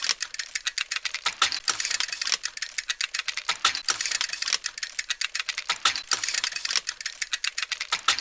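Rapid, irregular clicking like fast typing on a keyboard, a cartoon sound effect for a wristwatch being set.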